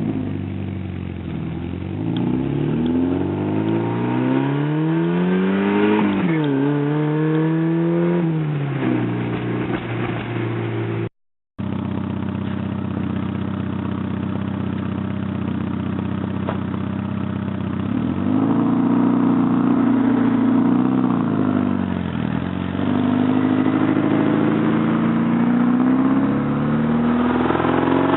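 1986 Porsche 944's 2.5-litre inline-four running with an exhaust leak ahead of the catalytic converter. Its pitch climbs and drops sharply several times, holds steady for several seconds, and then rises and falls again. The sound cuts out completely for a moment about eleven seconds in.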